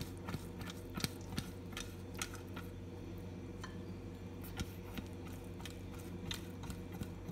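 Silicone pastry brush dabbing and sweeping oil over an aluminium idli stand: faint, irregular light clicks and taps of the brush and stand, a few a second, over a steady low hum.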